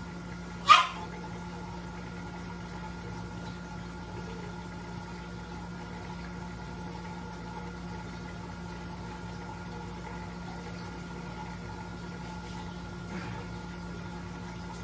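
Steady room hum with a few fixed tones running under it, the kind of hum an electrical appliance gives off. About a second in there is one short, sharp, loud sound, and near the end a much fainter one.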